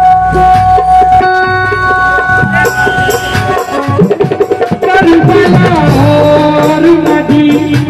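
Qawwali music with tabla and other percussion beating under a melody. The melody holds one long note through the first half, then moves in gliding phrases.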